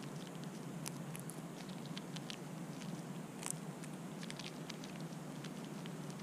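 Fox squirrel chewing dry corn kernels and picking through a pile of seed on concrete, making irregular small crisp crunches and ticks, with one sharper click about three and a half seconds in. A steady low hum runs underneath.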